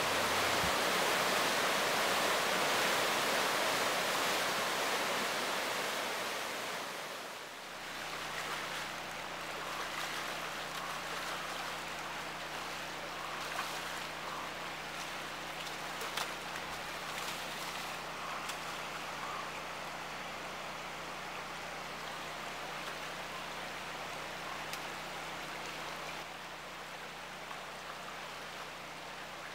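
Flood-swollen river rushing loudly over rapids. About seven seconds in it gives way to the quieter wash of a shallow spawning channel, with a steady low hum and a few sharp splashes from spawning chum salmon.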